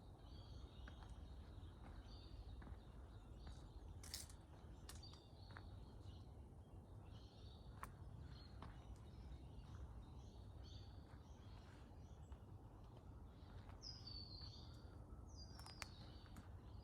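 Faint birdsong: many short chirps and calls, a couple of them falling in pitch near the end, over a low steady rumble, with a few sharp clicks.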